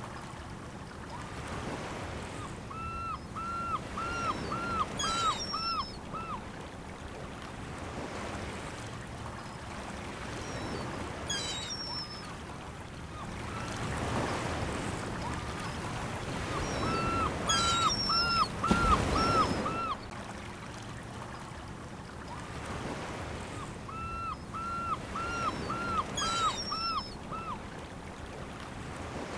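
Waves washing against a shore, swelling loudest about two-thirds of the way through. Over the surf an animal call repeats three times, each a quick run of seven or eight identical short notes, with higher chirps in between.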